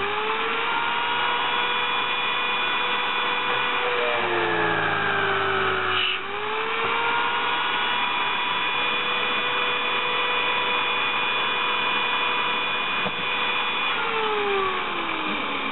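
Electric drill clamped in a drill stand, running with a steady whine. About four seconds in its pitch sags as the motor slows, then climbs back after a click around six seconds, and near the end it falls again as the motor slows down.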